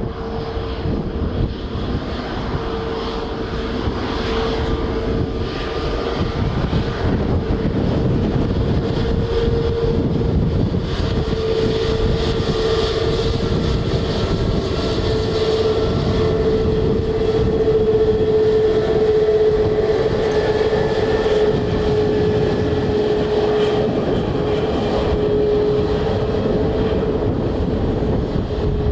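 Jet airliner engines as an aircraft passes: a steady whine slowly falling in pitch over a heavy rumble, growing louder to a peak about two-thirds of the way through, with wind buffeting the microphone.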